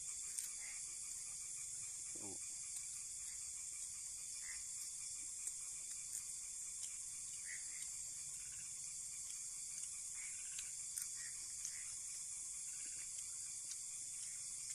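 Steady high-pitched chorus of night insects such as crickets, with a few faint clicks and a brief low sound about two seconds in.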